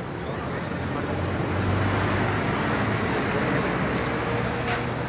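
Motorcycle engine running, with steady road and wind noise. The engine note swells about two seconds in.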